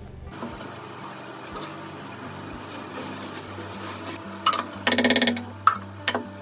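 Steel pots and utensils clanking at a kitchen sink during dishwashing. A sharp strike comes about four and a half seconds in, then a loud ringing clatter of metal, then two more clinks.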